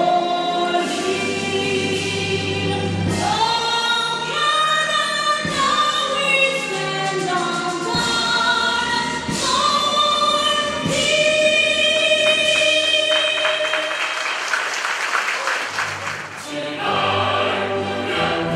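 A standing crowd sings in unison along with a recorded choir and band playing a national anthem, with long held notes changing about once a second.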